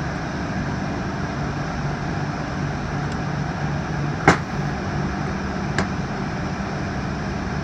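Two sharp metal clicks from the parts of a small hydraulic gear pump being fitted together, the louder about four seconds in and a fainter one a second and a half later, over a steady low hum.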